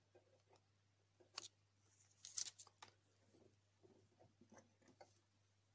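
Faint clicks and taps from small hand soldering work on a copper antenna loop, with a short hiss about two seconds in.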